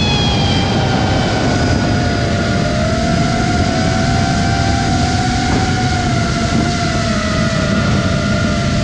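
FPV quadcopter's motors whining in flight, their pitch drifting gently up and down with the throttle, over a steady low rush of wind.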